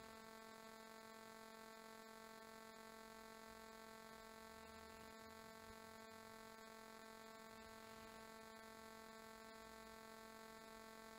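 Near silence with a faint, steady electrical hum that has a buzzy edge and does not change.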